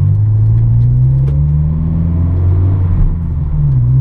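Honda S2000's four-cylinder engine pulling under acceleration, heard from inside the cabin, its pitch climbing steadily, then dipping briefly about three seconds in before rising again.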